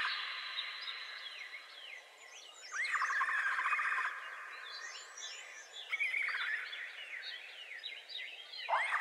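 Chorus of forest birds: one bird repeats a buzzy trill about a second long three times, each opening with a quick upward sweep, while other birds chirp briefly throughout.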